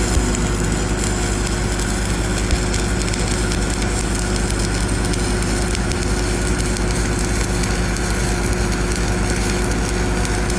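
An engine running steadily with a continuous crackling sizzle over it, the sound of arc welding beside a running engine.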